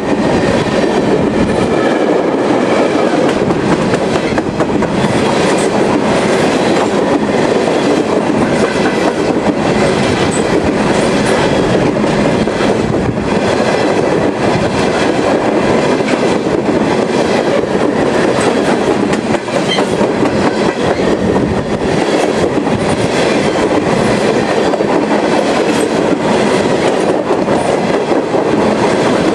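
Freight train cars rolling past, with steady wheel-on-rail noise and the clickety-clack of wheels over rail joints.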